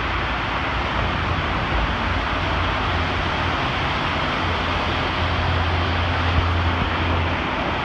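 Auto Train rolling across a railway bridge: a steady rumble with a low hum that grows stronger for a couple of seconds late on.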